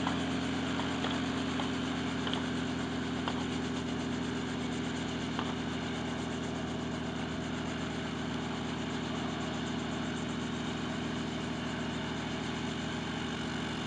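Helicopter engine and rotor running steadily with an even drone and a constant pitch.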